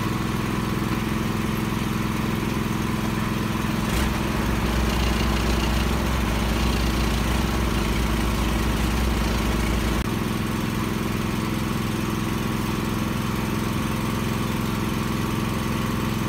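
Komatsu WA320 wheel loader's diesel engine running steadily. About four seconds in there is a click and the engine note turns deeper and heavier for about six seconds, then settles back.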